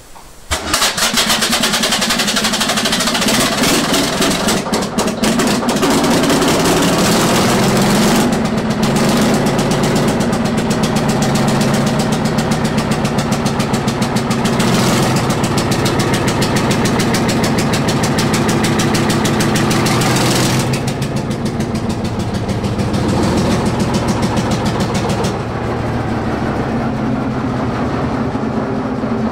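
Crossley E6 two-stroke diesel engine starting about half a second in, then running with a fast, even firing beat.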